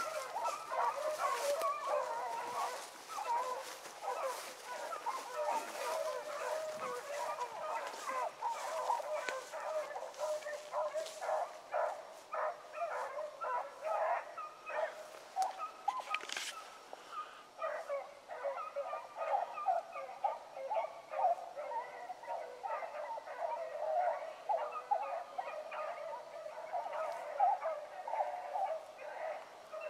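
A pack of rabbit dogs baying while they run a rabbit, giving many quick, overlapping barks and bawls without a break.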